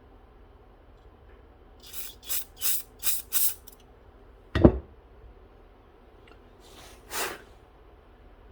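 Five quick hissing blasts, then one sharp loud puff about halfway through and a longer hiss near the end: air or spray being forced through the tiny hole of a carburetor main jet, which turns out to have something lodged in it.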